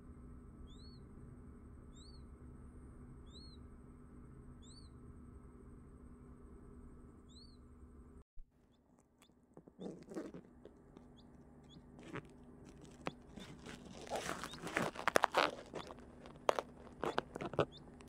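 Newly hatched quail chick giving faint, short high peeps, each a quick up-and-down note, about once every second or so over a low steady hum. After a break about halfway through comes crackling and rustling of the tissue-paper bedding, with sharp clicks, loudest near the end.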